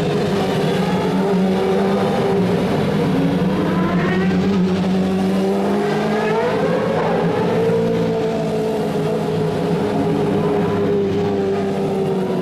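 Several single-seater racing car engines running at low revs as the cars pull slowly away one after another, with short rises in pitch as the throttles are blipped.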